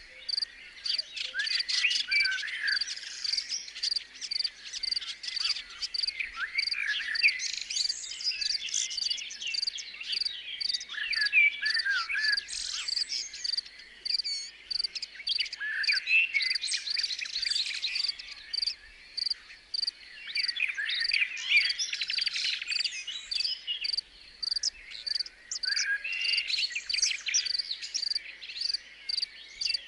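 Nature ambience: a cricket chirping in an even, steady rhythm while several birds sing with varied chirps and trills.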